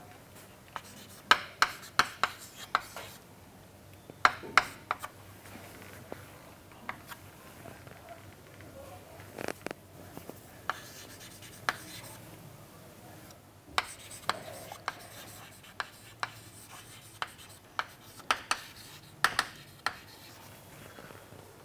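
Chalk writing on a chalkboard: irregular sharp taps as the chalk strikes the board, in clusters, with faint scratching strokes between them.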